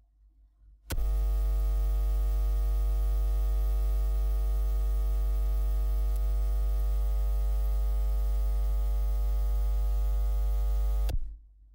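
Loud, steady electrical mains hum, a low buzz with many overtones, that starts abruptly about a second in and cuts off abruptly shortly before the end.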